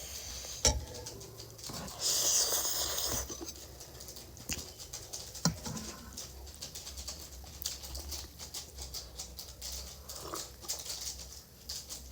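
Close-miked eating sounds of spicy instant noodles: a slurp lasting about a second, starting about two seconds in, with many small chewing and mouth clicks.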